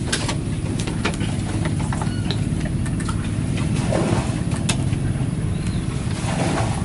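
An engine running steadily with a low hum, with scattered light clicks and taps on top.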